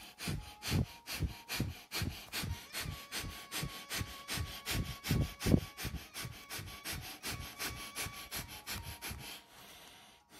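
Rapid, forceful breaths in and out through a man's nose, about four a second: Bhastrika (bellows breath), a yogic pranayama breathing exercise. The breathing stops shortly before the end.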